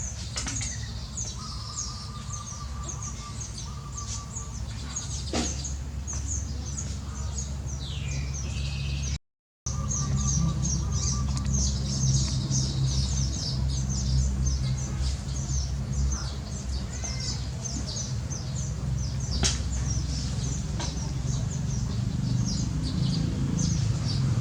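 A colony of small birds chirping densely and continuously in rapid, high calls, over a steady low rumble. The sound cuts out briefly about nine seconds in.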